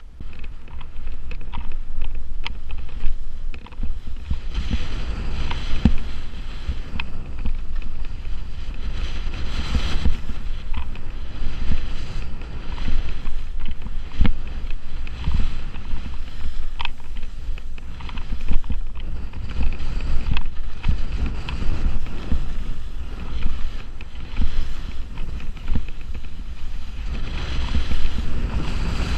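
Skis hissing and scraping through slushy spring snow in repeated turns, with wind rumbling on the microphone. The noise jumps up right at the start as the skier gets moving and then surges with each turn.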